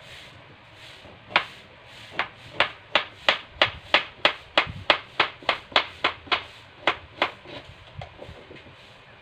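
Kitchen knife chopping bamboo shoot (labong) on a plastic cutting board: a run of sharp knocks about three a second, starting about a second in and growing fainter near the end.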